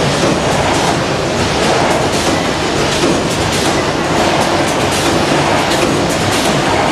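Steady din of a running food-packaging line: packaging machines, weighers and conveyors working, with frequent light clicking and clatter.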